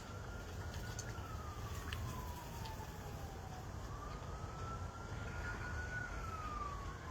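A faint siren wailing, a single tone slowly rising and falling over a few seconds each cycle, over a low background hum with a few small clicks.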